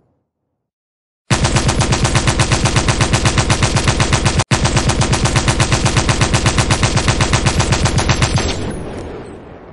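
Machine gun firing one long sustained burst of rapid, evenly spaced shots. The burst starts abruptly about a second in, has a split-second gap midway, and ends with a fading tail.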